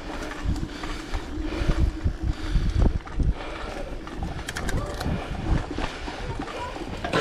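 Mountain bike riding over a bumpy dirt trail: tyre rumble with many irregular low knocks and rattling jolts, and a few sharp clicks from the bike.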